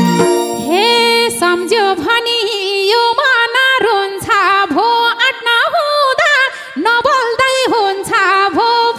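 A woman singing a Nepali dohori folk-song line into a microphone with many sliding, ornamented pitch bends. The band's accompaniment drops away after about two seconds, leaving her voice nearly alone.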